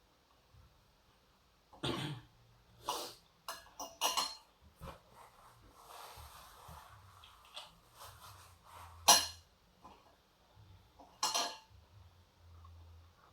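A person coughing several times in short, separate coughs spread through a few seconds, the loudest about nine seconds in.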